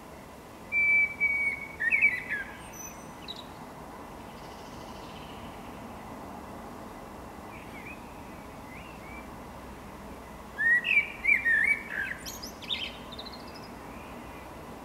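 Common blackbird (Turdus merula) singing two loud song phrases, one about a second in and one about ten seconds in. Each phrase opens with low fluting whistles and ends in a higher, thin twitter. A faint phrase comes in between.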